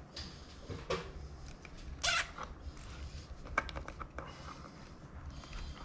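Hands handling the washdown pump motor's red and black wires, looping them back and cinching them with a cable tie: soft rustles and small clicks, with a brief sharper scrape about two seconds in and a quick run of ticks a little later. A faint steady low hum lies underneath.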